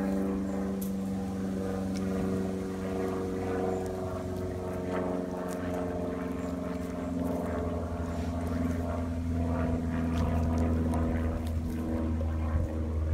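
A large dog gnawing and crunching on a raw marrow bone, with short scattered cracks and scrapes of teeth on bone. Under it, a steady motor-like drone holds a constant pitch and grows louder about halfway through.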